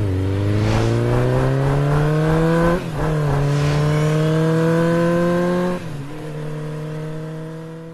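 An engine accelerating hard through the gears. Its pitch climbs steadily, drops sharply with an upshift about three seconds in and again near six seconds, then fades out at the end.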